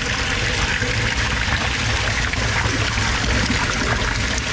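Pump-fed water pouring steadily into a homemade polypropylene sieve pre-filter and splashing through it, an even rush of water with a low rumble underneath.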